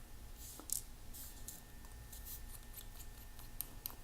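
Precision screwdriver turning the two pentalobe screws at the bottom of an iPhone 6, giving faint, scattered scratchy ticks.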